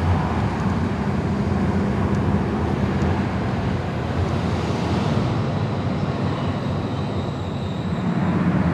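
A car driving: steady road and engine noise with a low, even drone.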